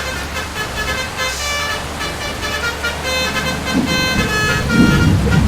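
Basuri multi-tone 'telolet' air horn playing a quick run of changing notes over a running engine's low hum. A louder low rumbling joins in about four seconds in.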